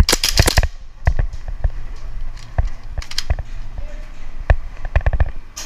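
Airsoft pistol shots cracking in a quick string in the first half second, then scattered single sharp clicks and knocks, several of them shots and BBs hitting plywood walls.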